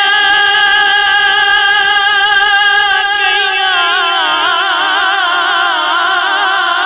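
A man singing a Punjabi devotional kalam into a microphone. He holds one long note steadily, and about halfway through it breaks into a wavering, ornamented run.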